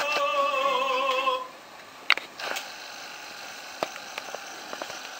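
Music playing from a television: a held, wavering note for about a second and a half that then stops. After it, only low room noise with a few faint clicks.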